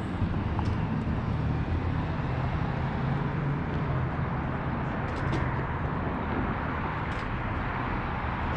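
Steady road traffic: the constant hiss and rumble of cars passing on the street, with a few faint ticks.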